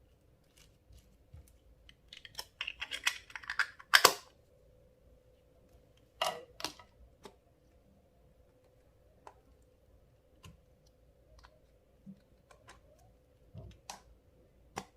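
Clear slime being squeezed and worked by hand, giving sticky crackling clicks and pops: a dense run of crackles about two seconds in ending in a loud snap, two more pops a couple of seconds later, then scattered small clicks.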